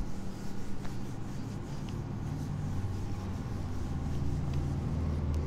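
Whiteboard duster rubbing across a whiteboard, wiping off marker writing, over a low steady hum.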